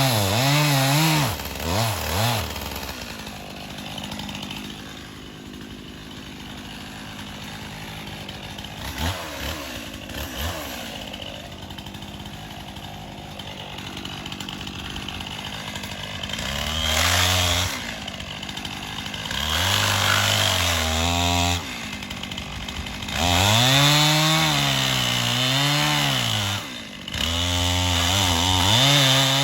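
Stihl chainsaw cutting into a standing dead oak to fell it: the engine runs at high revs with its pitch rising and sagging under load in the cut. From about three seconds in it drops to a quieter, steadier note for about fourteen seconds, then comes back to full revs in several bursts.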